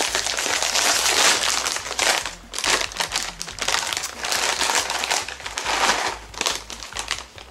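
Plastic snack bag of veggie sticks crinkling and crackling as it is handled and reached into. The rustling is dense for most of the time and thins out near the end.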